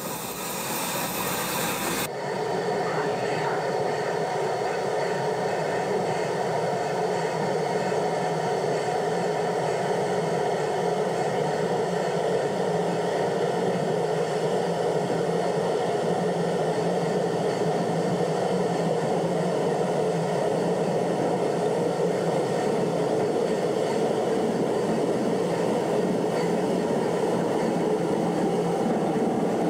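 Rack-railway steam train running steadily on its track while descending a steep grade. A high hiss for the first two seconds breaks off suddenly and gives way to an even, unbroken running sound.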